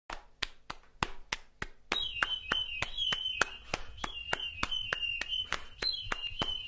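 Sharp clicks a few times a second, joined about two seconds in by quicker clicks and a high-pitched melody of held notes stepping up and down: the percussive opening of an intro music track.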